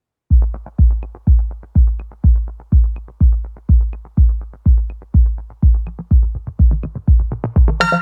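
Electronic background music: a deep kick drum on a steady beat about twice a second with faint ticks above it, and a fuller synth layer coming in near the end.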